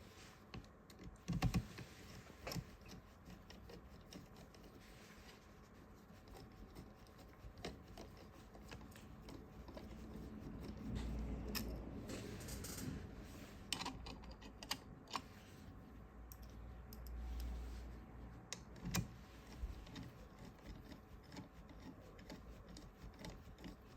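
Faint, scattered small clicks and taps of a rail and its screws being handled and fitted on an airsoft gun, with a few soft low knocks.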